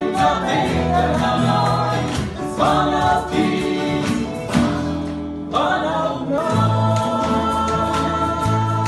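Live blues band and choir performing: many voices singing together over acoustic guitars, with steady low bass notes; sung phrases start with a rising swoop about two and a half and five and a half seconds in.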